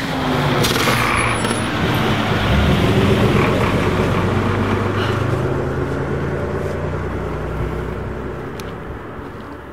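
A motor vehicle's engine running close by as it passes on the road, loudest about three seconds in and then slowly fading away.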